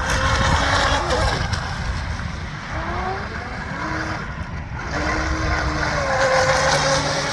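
Pro Boat Stealthwake R/C boat with a wire drive running on the water, its electric motor whine gliding up and down in pitch several times as the throttle changes.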